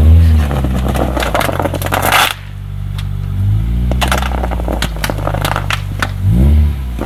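Acura Integra's four-cylinder engine revving up and back down three times, at the start, about three and a half seconds in, and near the end. Under the revs, its tyres scrape and crackle as they slide on a wad of bubble wrap.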